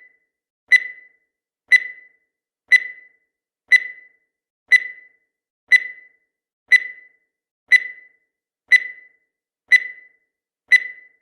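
Countdown timer sound effect: a short, sharp, high-pitched tick-beep that repeats evenly once a second, each one dying away quickly, marking off the final seconds.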